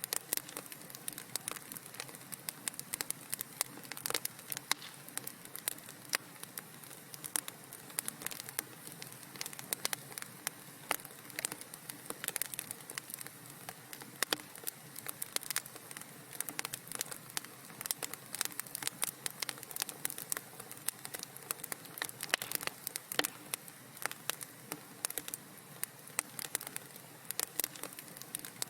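Wood fire crackling in a fireplace: a dense, irregular stream of small sharp pops and snaps over a soft hiss.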